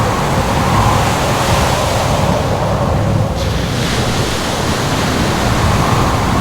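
Loud, continuous roar of ocean waves and surf mixed with wind, with a faint howling tone that fades out partway through.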